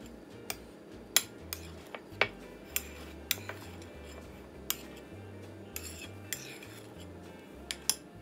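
A metal spoon clinking and scraping against a ceramic bowl as it folds beaten egg yolks into whipped egg whites: a dozen or so sharp, irregular clinks.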